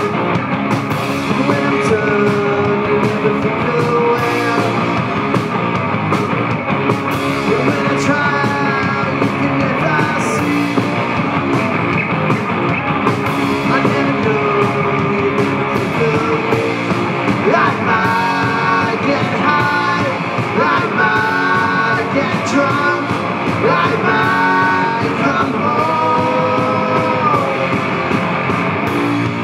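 Live rock band playing loud and steady: electric guitars, bass guitar and drum kit, with melodic lead lines sliding in pitch.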